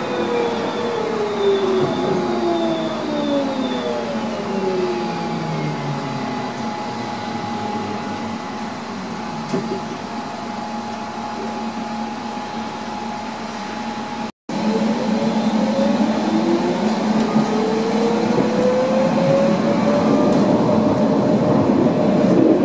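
Tram heard from inside the car: its electric traction motors whine, the pitch falling as it slows. After a sudden brief break about two-thirds of the way in, the whine rises as it picks up speed again, over a steady rumble of wheels on the rails.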